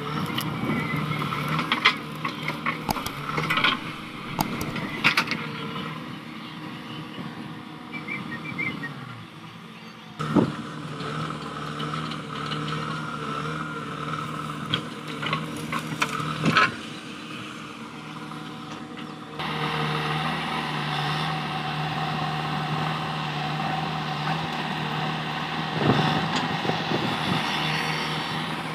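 JCB 3DX backhoe loader's diesel engine running steadily under load as it digs and swings its bucket, with occasional sharp knocks from the bucket and sand. The engine note changes abruptly about ten and nineteen seconds in.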